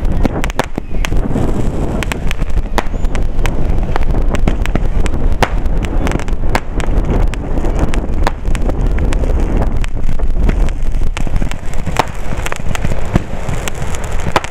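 Fireworks going off: a dense, irregular run of sharp cracks and pops, several a second, over a constant low rumble.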